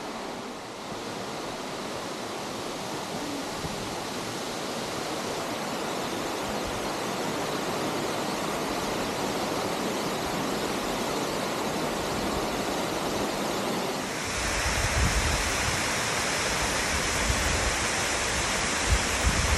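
Steady rush of water from a cascading mountain stream. About 14 seconds in it becomes louder, with more hiss and a low rumble.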